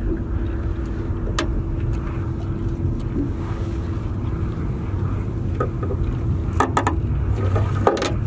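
A steady low rumble with a constant motor-like hum, and a cluster of sharp clicks and knocks near the end.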